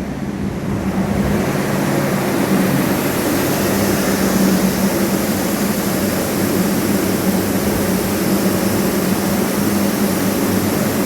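Structural drying equipment running: fans and blowers of air movers, dehumidifiers and heaters giving a steady whooshing drone with a constant low hum. It grows louder over the first couple of seconds, then holds steady.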